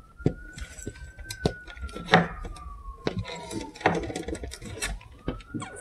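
A siren wails faintly, its pitch rising, falling slowly over several seconds, then rising again near the end. Scattered small knocks and clicks from handling things are louder than the siren.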